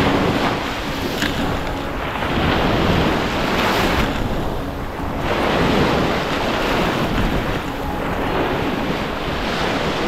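Sea of Azov waves washing around, swelling and easing every couple of seconds, with wind buffeting the microphone.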